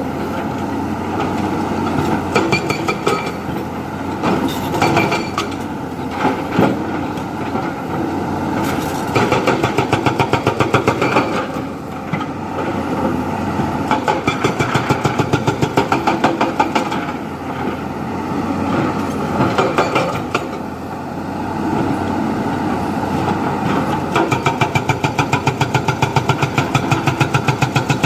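Diesel engine of heavy earth-moving machinery running steadily under working load. In several stretches of a few seconds it breaks into a rapid, even pulsing.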